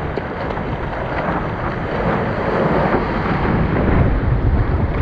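Sea water rushing and splashing close against a surfboard's nose as broken wave whitewash washes over it, mixed with wind buffeting the microphone. The rush builds about two seconds in and is loudest near the end.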